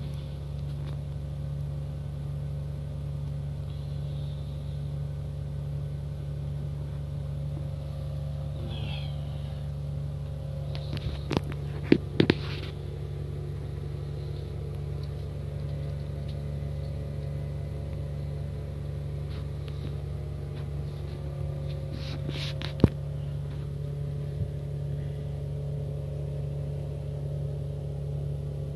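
A steady low hum, broken by a few sharp clicks: a short cluster about eleven to twelve seconds in and a single click near twenty-three seconds.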